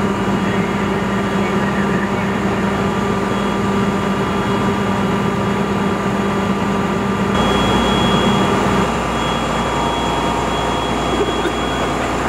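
Steady drone of a fire engine's motor running at the pump, with the hiss of a hose stream hitting a burning pickup truck. The drone's pitch and mix shift abruptly about seven seconds in.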